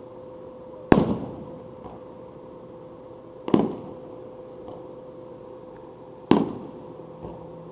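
Aerial firework shells bursting overhead: three loud bangs about two and a half seconds apart, each trailing off in a short echo.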